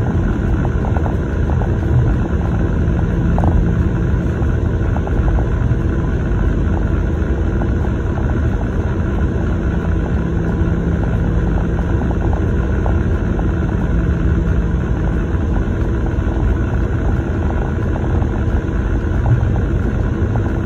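Steady low rumble of tyre and engine noise inside a car cruising on a highway.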